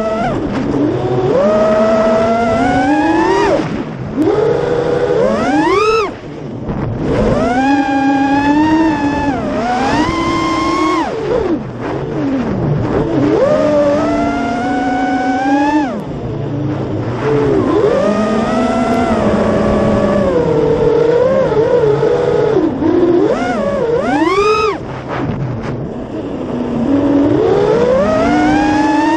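Armattan Marmotte FPV quadcopter's brushless motors and propellers whining, the pitch rising and falling with the throttle, with brief dips where the throttle is cut.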